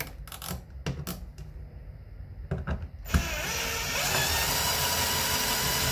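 A few handling clicks as the screw is set, then about three seconds in a cordless drill starts and runs steadily, driving a mounting screw of a 30-amp dryer receptacle into a plastic electrical box, cutting off near the end.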